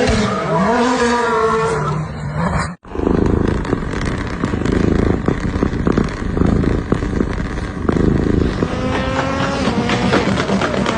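Car engine revving hard, its pitch rising and falling, cut off suddenly for a moment about three seconds in, then a loud rough running rumble. Revs climb again near the end.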